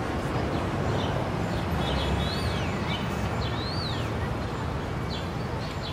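Steady city traffic rumble with a bird calling over it: short chirps and two longer whistled notes that rise and fall, about two and three and a half seconds in.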